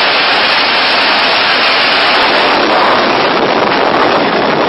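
Jet engine blast on an aircraft carrier flight deck: a loud, steady roar of rushing air and engine noise with no change in pitch.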